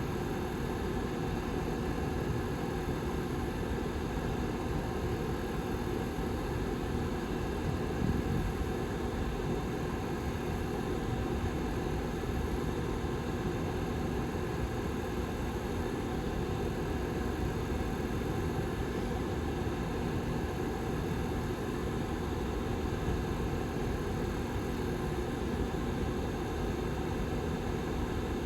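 Rear fan of a Lasko 755320 ceramic tower heater running steadily: an even rush of air with a faint low hum underneath.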